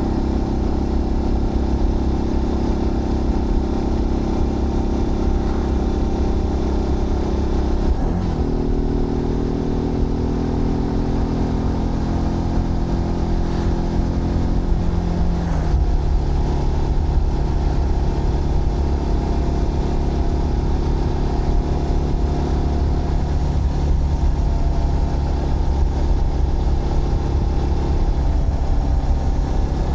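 Zontes GK 125 motorcycle's small single-cylinder engine running under way, a steady drone. The engine note dips sharply about eight seconds in and steps down in pitch around fifteen seconds in.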